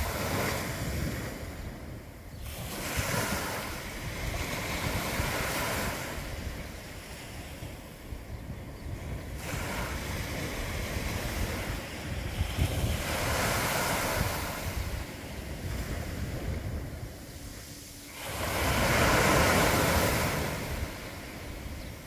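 Small sea waves breaking and washing up a coarse sand beach, the surf swelling and falling every few seconds with the biggest wash near the end. Wind buffets the microphone throughout.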